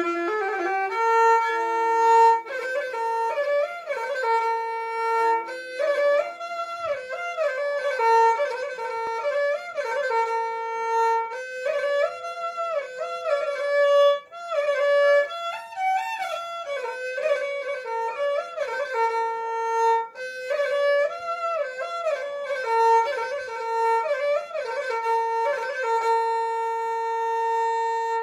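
Instrumental background music: one melody played on a bowed string instrument like a violin, with notes that slide from one pitch to the next.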